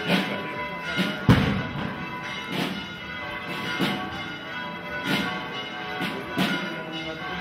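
Church bells ringing in a steady rhythm, a stroke about every second and a quarter, each leaving a long ringing hum. One heavier, deeper thud comes about a second in.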